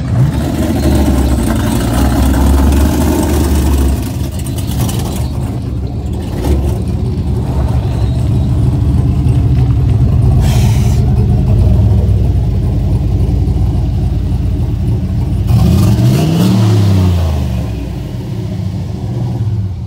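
Lowered pickup truck's engine running loudly, with a brief hiss about halfway through and a rev that rises and falls near the end.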